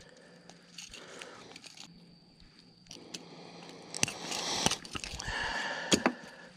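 Handling noises of a hook being worked out of a largemouth bass's mouth with pliers: a few sharp clicks and knocks with rustling that begin about four seconds in, after a quiet stretch.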